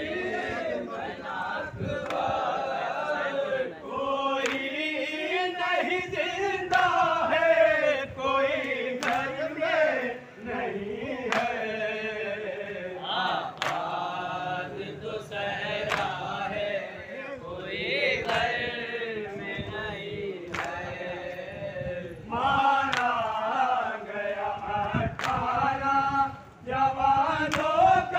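A group of men chanting a nauha, a Muharram mourning lament, together in a slow, wavering melody, with sharp thumps now and then.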